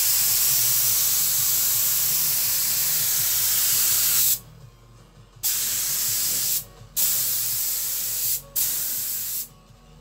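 Compressed-air gravity-feed spray gun hissing steadily as it sprays paint, cut off abruptly about four seconds in. Three shorter bursts follow as the trigger is pulled again, each stopping sharply, the last ending just before the end.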